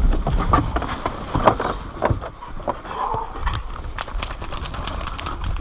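Footsteps crunching on a dirt road, an uneven run of short scuffs and knocks.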